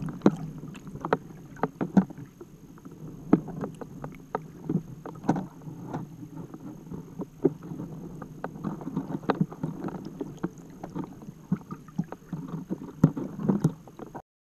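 Underwater noise inside a towed pelagic trawl net: a steady rush of water past the camera housing, broken by frequent irregular knocks and clicks. It cuts off abruptly near the end.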